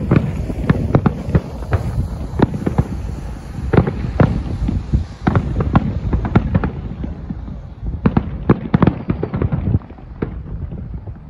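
Fireworks display: aerial shells bursting in a rapid, irregular run of bangs and crackles, several a second, over a low rumble, with a denser cluster of bangs about eight seconds in.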